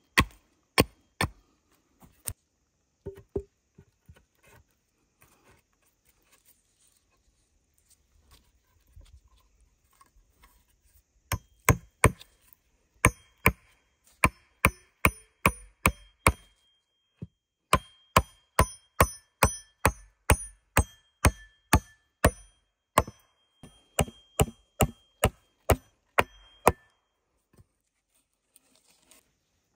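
Axe blows on wood: sharp strikes about two a second, each with a short metallic ring. After a few strikes there is a pause of several seconds, then two long runs of blows.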